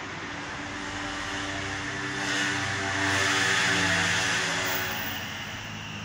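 A passing motor vehicle: its engine and hiss swell to a peak about halfway through and then fade, over a steady low hum.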